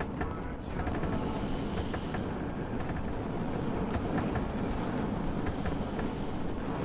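A boat's engine running with a steady low rumble, with faint scattered ticks of rain over it.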